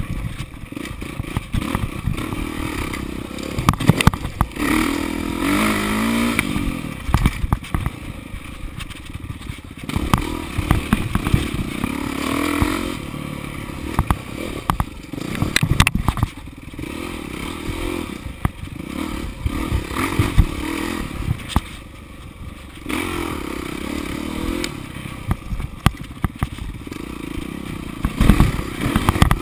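Dirt bike engine revving up and dropping off again and again as the throttle is worked along a rough trail, with frequent sharp knocks and rattles from the bike over bumps.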